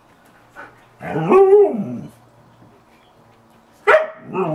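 Dog vocalizing in drawn-out, pitched whine-howls that rise and fall in pitch: one call about a second long, then a sharp click and a second call starting near the end.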